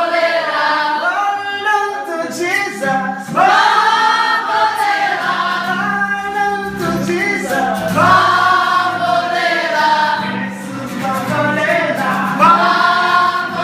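A group of voices singing together in long phrases, with a steady low note under much of it.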